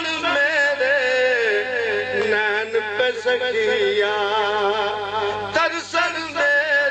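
A man singing a slow, drawn-out melody into a microphone, holding long ornamented notes with a heavy wavering vibrato. He pauses briefly near the end.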